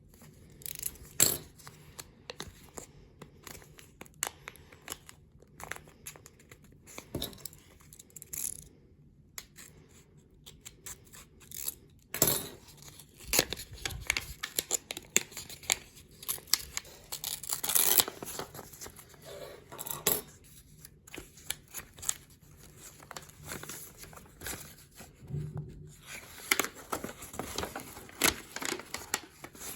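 A Pokémon card booster pack's foil wrapper being torn open and crinkled, with irregular crackles and rustles of handling.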